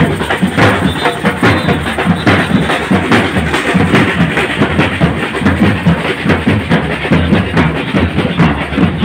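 A street drum band plays together in a fast, driving rhythm: many hip-slung drums and bass drums beaten at once, loud and continuous.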